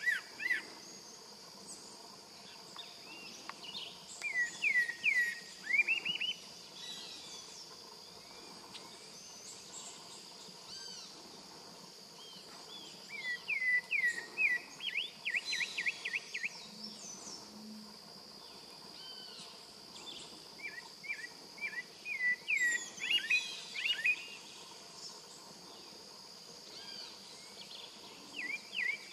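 Pale-breasted thrush singing three phrases of rapid, quickly repeated sweeping notes, several seconds apart, over a steady high-pitched drone.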